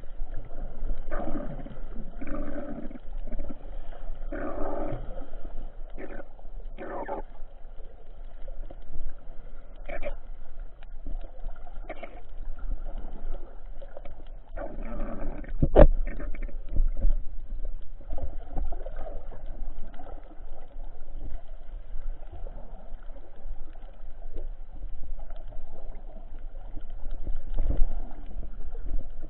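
Muffled underwater sound picked up by a submerged camera: a steady low rumble with irregular soft gurgling, busiest in the first several seconds, and one sharp click about sixteen seconds in.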